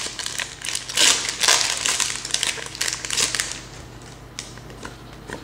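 Foil wrapper of a Pokémon trading card booster pack being torn open and crinkled by hand: a run of crackling rustles that dies down about three and a half seconds in, followed by quieter handling with one small click.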